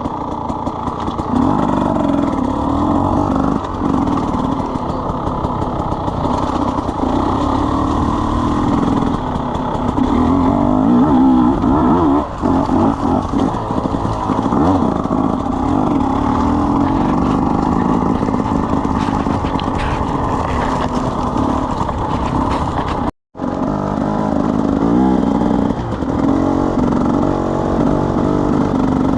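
KTM 300 EXC two-stroke single-cylinder enduro motorcycle engine running, its pitch rising and falling with the throttle. It breaks off to silence for a moment about 23 seconds in, then carries on.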